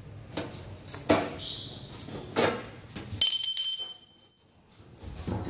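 Hands handling a steel fuel tank while pushing foam through its pump opening: a series of knocks and scrapes, and about three seconds in a metal clink that rings briefly like a small bell.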